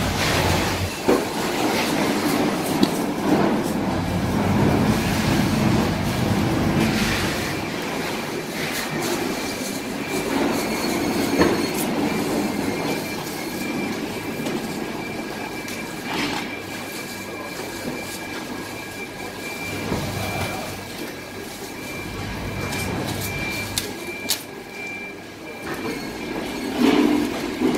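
Busy fish-market background noise: a steady mechanical din with a thin, high, steady whine through the middle and scattered sharp knocks.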